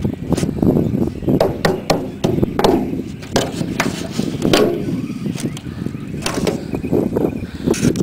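Downspout elbow being worked loose and pulled off by hand: repeated knocks, clatters and scraping of the pipe sections against each other.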